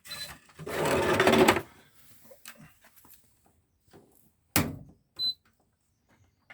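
Indesit washing machine beeping briefly from its control panel, then about a second of loud rattling mechanical noise, a sharp click about four and a half seconds in, and a second short beep.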